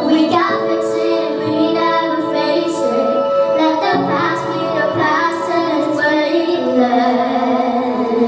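A female voice singing long, wordless held notes and runs over backing music.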